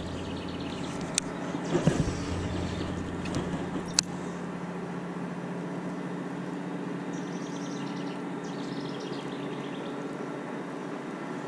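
Steady low hum of a small motor whose deepest part drops away about two seconds in, with a couple of sharp clicks.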